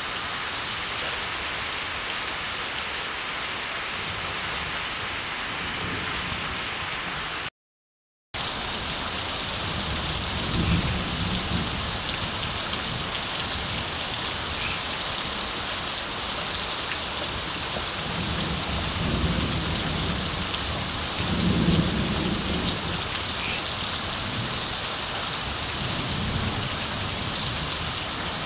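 Steady rain falling on the countryside, with distant thunder rumbling low several times through the second half. The sound cuts out completely for under a second about a quarter of the way in.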